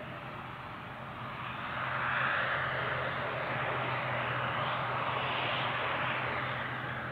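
An ATR 72's twin turboprop engines running as the airliner taxis: a steady low hum under a broad propeller-and-engine roar that grows louder about a second and a half in.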